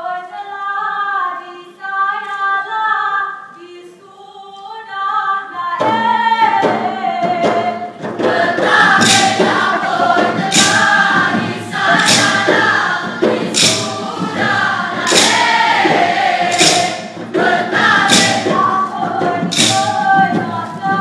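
Mek Mulung theatre song sung by a group of voices. About six seconds in the singing grows louder and fuller, and from about eight seconds sharp percussion strikes come in roughly every second.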